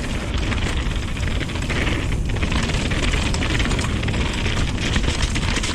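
Mountain bike descending a wet, muddy trail: a steady rush of wind on the helmet-camera microphone over tyre noise, with constant small rattles and clicks from the bike.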